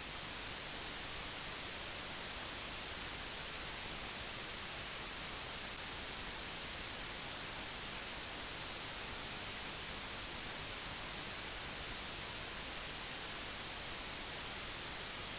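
Steady hiss of static, like white noise, unchanging in level, with no other sound in it.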